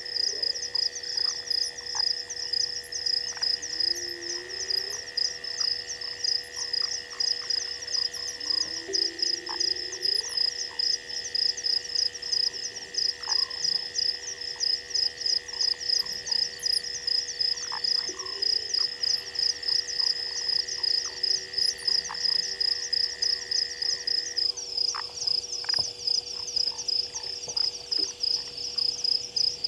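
Night chorus of frogs and insects: a loud, fast, even high-pitched pulsing call over a steady high trill that stops about 25 seconds in, with a few short low croaks.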